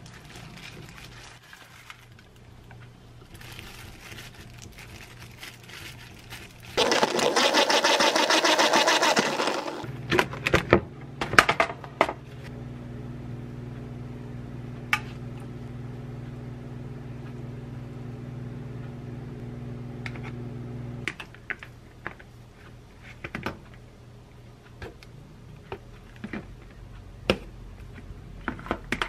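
Kitchen food-prep sounds. About seven seconds in there is a loud rustle of plastic lasting about three seconds. Then an appliance motor hums steadily for about eleven seconds and stops suddenly. Sharp clicks and taps of tongs and a spoon on dishes run around it.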